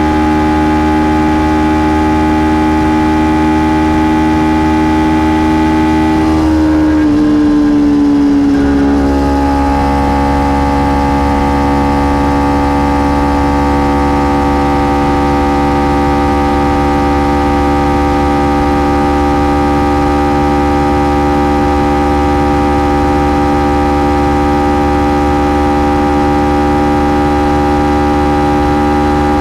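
Kawasaki Ninja 300's parallel-twin engine running at steady revs through its stock exhaust, with a slight drop in pitch about seven seconds in before it holds steady again.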